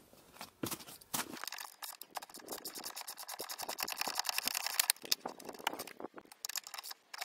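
Quick, close-set clicking of a socket ratchet loosening a 14 mm bolt on a snowmobile's brake caliper, with scattered clinks of wrenches on metal.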